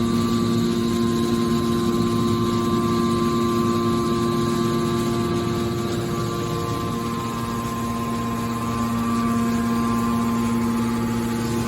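Hydraulic metal baler's pump and motor running, a steady mechanical hum with a constant whine, easing slightly partway through.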